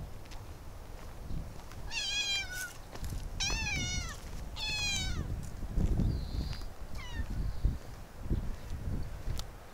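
Tabby cat meowing: three meows in quick succession from about two seconds in, each dropping in pitch at the end, then a short fourth meow a couple of seconds later. Low thumps and rumbling run underneath.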